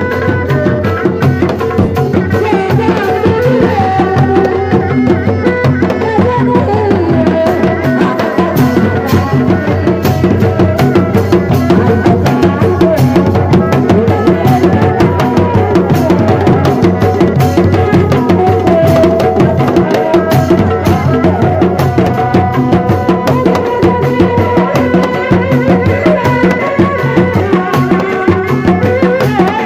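Sundanese dog-dog street ensemble: a dense, fast, continuous rhythm of hand-beaten dog-dog drums and a large pole-slung bass drum, with a sustained, wavering melody line over the drumming.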